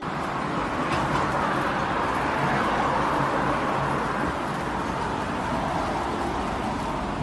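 Steady hum of street traffic and outdoor background noise, swelling slightly in the middle.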